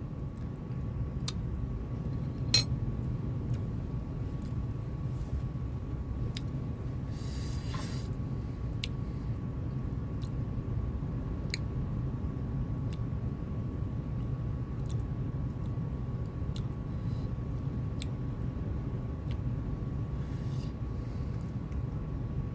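Steady low room hum with a faint constant tone, broken by scattered small clicks and clinks of wooden chopsticks against dishes and glassware while someone eats. There is a brief burst of noise about seven seconds in.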